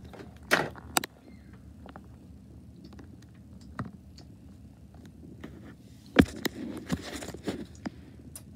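Plastic toy baby bottles being handled against baby dolls' faces: sharp clicks and knocks, the loudest about six seconds in, with light rustling in between.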